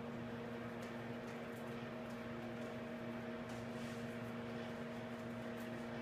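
Steady electrical machine hum with one low, even tone and fainter higher tones, with a few faint clicks over it.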